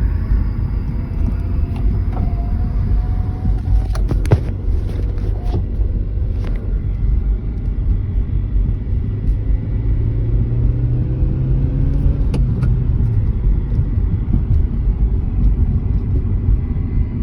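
2013 Hyundai Veloster heard from the cabin: a steady low rumble runs throughout, and a low hum swells for about three seconds roughly ten seconds in. This is the humming noise being checked on the car. A few faint clicks are heard, near four seconds and again near twelve.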